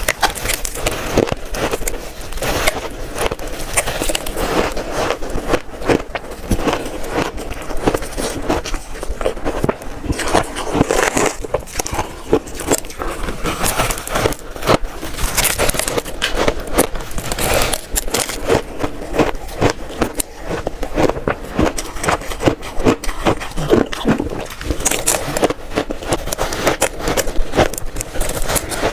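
Close-up crunching and crackling of shaved ice being bitten and chewed, a dense run of sharp icy cracks with no pauses.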